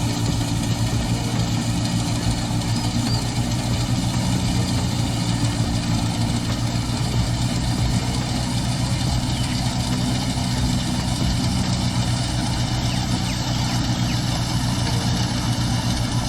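A tractor-driven wheat thresher running steadily at work, the tractor's engine humming evenly under the thresher's rushing noise.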